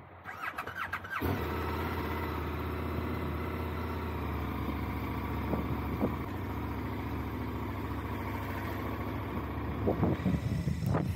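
Motorcycle engine cranked by its electric starter for about a second, catching and then idling steadily. Louder, uneven sounds come in near the end.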